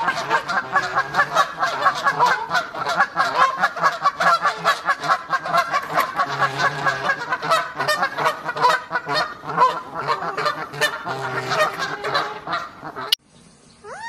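Canada geese honking, a rapid, unbroken run of many short overlapping calls that cuts off abruptly near the end.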